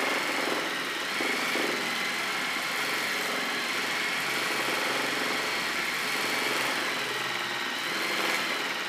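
Juki sewing machine running steadily at high speed, its needle stitching without a break as the fabric is moved freely under the foot.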